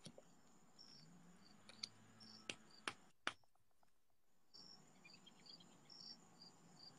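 Faint crickets chirping in a steady rhythm, about two or three chirps a second. A few sharp clicks come between about two and three seconds in as tarot cards are handled and shuffled.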